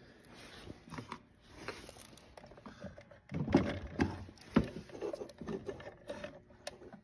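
Hands handling the plastic parts of a fuel pump module: scattered clicks, taps and light scrapes, busiest about halfway through.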